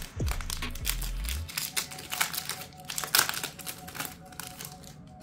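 Foil wrapper of a Pokémon Crown Zenith booster pack crinkling as it is torn and pulled open by hand: a rapid run of sharp crackles that thins out near the end.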